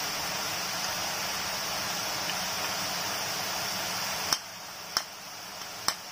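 Hot oil sizzling steadily as drops of gram-flour batter fall through a perforated ladle and fry into boondi. About four seconds in the sizzle gets quieter, and three sharp taps follow from the ladles knocking together.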